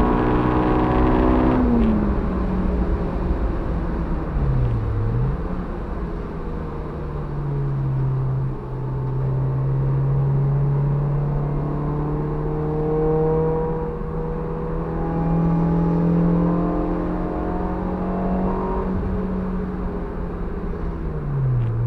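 Honda Civic EG6's B16A2 1.6-litre VTEC four-cylinder engine heard from inside the stripped-out cabin, running hard on track. The revs are high at first and drop sharply about two seconds in. Later there are two brief dips and recoveries in engine pitch and a long pull with the revs climbing slowly.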